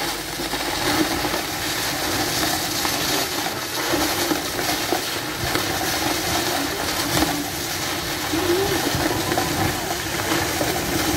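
Mud eruption jetting a tall column of mud and water into the air, making a steady rushing hiss.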